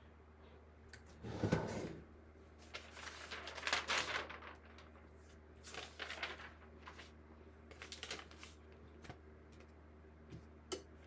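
Butcher paper rustling and crinkling as it is lifted off a heat press platen and handled, with a single thump about a second and a half in. A steady low hum runs underneath.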